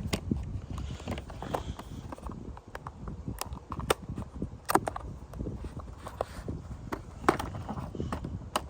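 A cardboard charger box being handled and opened: scattered sharp clicks and knocks, a few seconds apart, over a low rumble of handling noise.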